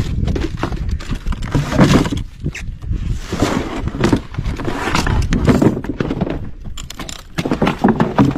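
Particleboard furniture panels and cardboard being pulled about and shoved aside on a pile of junk: a busy run of wooden knocks, thuds and scrapes with some rustling.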